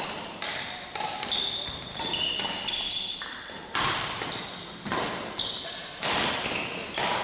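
A badminton doubles rally: a shuttlecock struck back and forth with rackets, a sharp hit about once a second that echoes round a large sports hall, with court shoes squeaking on the hall floor between shots.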